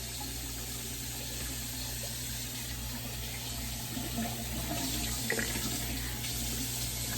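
Steady hiss of background noise with a low electrical hum beneath it.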